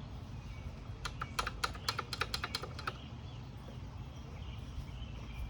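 A quick run of light clicks, about a dozen within two seconds, over a steady low rumble.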